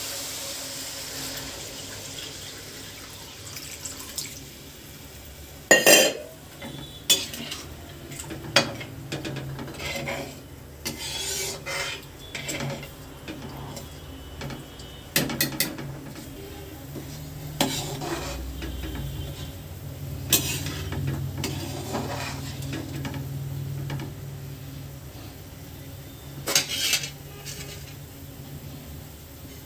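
Water poured into hot fried masala in a steel kadai hisses and sizzles briefly, then a perforated steel spoon stirs and scrapes the pan, clinking sharply against the metal every few seconds.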